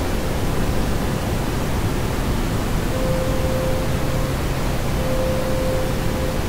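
Steady wash of hiss-like noise from an experimental noise track being played back. A faint held tone near 500 Hz comes in twice for about a second each.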